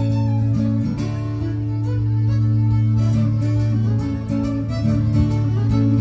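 Live folk-rock band playing, with fiddle and acoustic guitar over a steady bass line.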